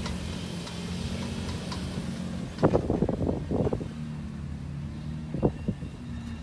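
Pickup truck engines running steadily with a low hum during a strap recovery of a truck stuck in sand. Loud rough bursts of noise cut in about two and a half seconds in and again briefly near five and a half seconds.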